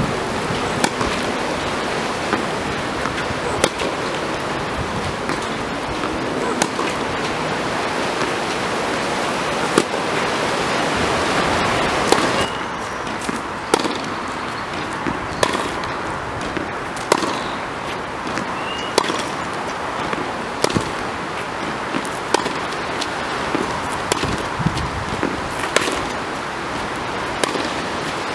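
Tennis balls struck with rackets in a feeding drill: sharp pops about every second, the player's shots answering the coach's feeds, over a steady rushing hiss that drops about halfway through.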